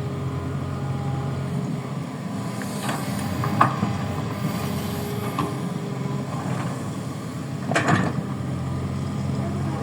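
Kobelco excavator's diesel engine running steadily while it digs, with a sharp clank about three and a half seconds in and a louder one near eight seconds, typical of the bucket or arm knocking.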